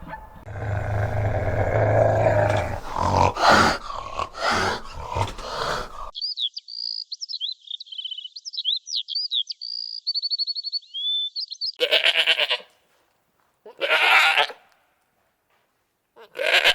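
A sequence of animal calls: about six seconds of low, rough grunting calls, then quick high chirping and whistling calls, then three short bleats with silences between them.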